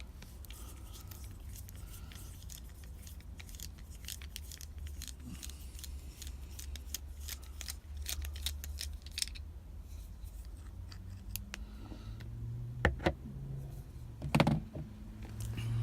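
Rapid small metallic clicks and scrapes of a screwdriver and lock parts being worked on a padlock held in a vice, followed near the end by two louder knocks.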